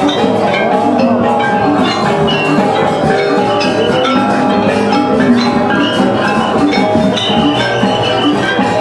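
Balinese gamelan playing steadily: bronze metallophones ringing in many quick notes at several pitches, with drums.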